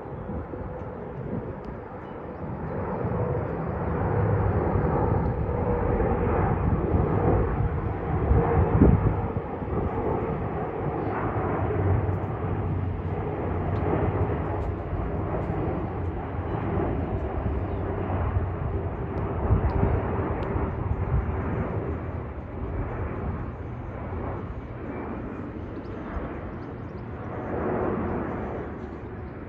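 Jet airliner, a twin-engine widebody, passing overhead. Its engine rumble builds up a few seconds in and then holds steady, with a faint whine that slowly drops in pitch. A single sharp thump is heard about nine seconds in.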